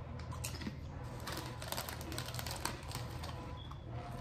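Close-miked eating sounds: a quick run of small crackles and clicks, thickest in the middle.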